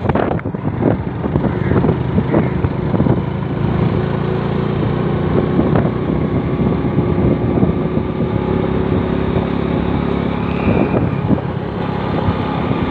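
Motorcycle engine running steadily while riding over a rough dirt track, with many short knocks and buffets from the bumpy ride and air on the microphone.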